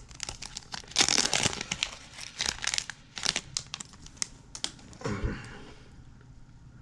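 Plastic wrapper of a Topps trading card pack torn open and crinkled by hand, a run of crackling that is loudest about a second in and dies away after about five seconds.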